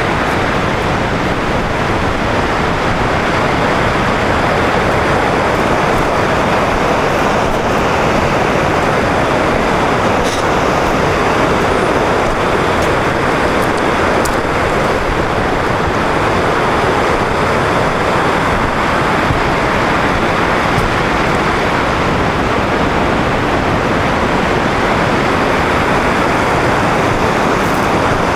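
Steady, loud rushing of a river running high through whitewater rapids.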